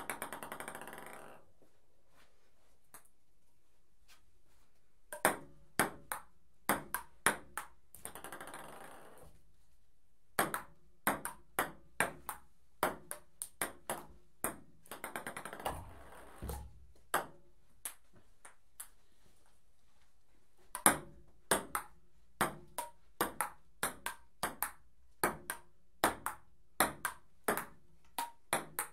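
Table tennis ball played back and forth in rallies: sharp clicks of ball on paddle and table, about two a second, broken by a couple of pauses of a few seconds. Three times a quick run of small hard ticks that fades out, like the ball bouncing to rest.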